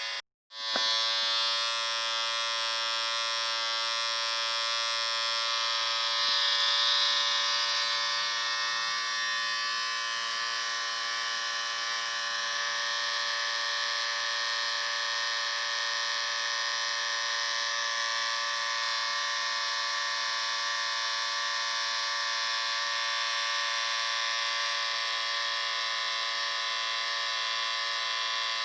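Electric shaver running with a steady buzz. It cuts out for a moment less than a second in, then runs on at the same pitch.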